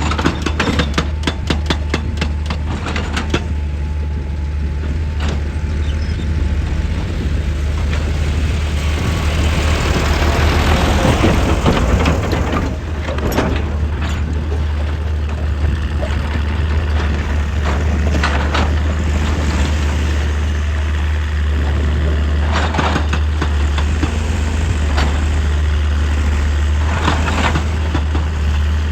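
Excavator's diesel engine running steadily, with a quick run of sharp knocks near the start. A loud scraping crunch comes around the middle as the bucket works into rock and earth, and single knocks follow now and then.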